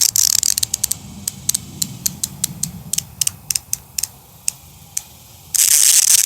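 The 72-tooth ratchet of an Anex QuickBall 72 (No. 397) ratcheting screwdriver clicking as it is turned backward. A fast run of fine clicks comes first, then single clicks that slow and spread out, then another quick burst of rapid clicking near the end.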